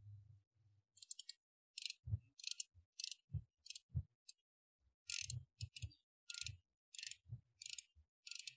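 Ratchet head of a torque wrench clicking in short bursts as the handle is swung back and forth, about a dozen quick runs of clicks with a few dull knocks, while a front brake caliper bracket bolt is run down and torqued.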